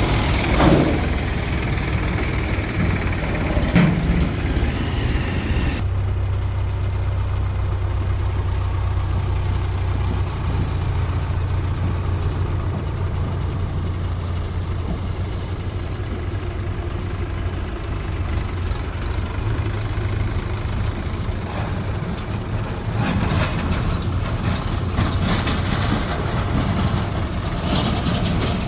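Heavy diesel engine running steadily at low revs, with a couple of knocks in the first few seconds and busier mechanical clatter near the end.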